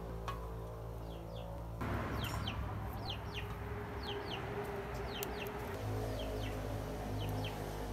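Chickens clucking and small birds chirping in short falling pairs, over steady background music.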